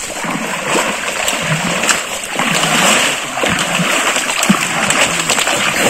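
Water splashing continuously as arms paddle hard in a pond beside a raft made of plastic bottles.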